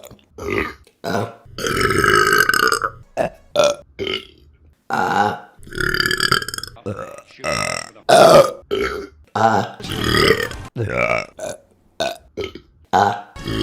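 A rapid series of women's burps, one after another, mostly short with some longer, drawn-out ones, the longest starting about two seconds in.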